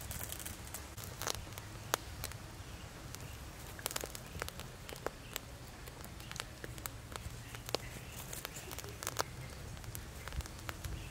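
Fresh green leaves crackling and popping as they singe on glowing charcoal in a clay stove: irregular sharp snaps scattered throughout, a few louder than the rest.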